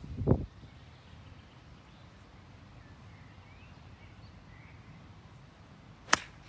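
A chip shot played with an iron from the rough: one sharp click of the clubface striking the golf ball near the end. A dull low thump comes just after the start, and faint bird calls sound in between.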